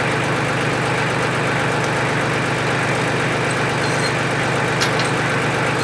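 A motor running steadily with an unchanging drone, with a few faint light clicks in the second half.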